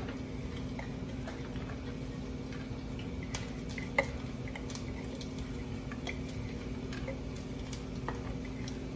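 A silicone spatula scraping and tapping chopped garlic out of a plastic chopper bowl into a pan of melting butter: scattered light ticks, with one sharper knock about four seconds in, over a steady low hum.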